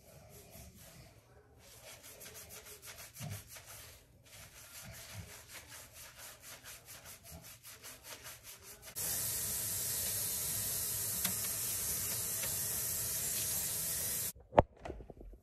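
Hands scrubbing wet hair in quick, quiet, rhythmic strokes, about four or five a second. About nine seconds in, a kitchen faucet starts running in a steady hiss that cuts off abruptly after about five seconds, followed by a single sharp knock.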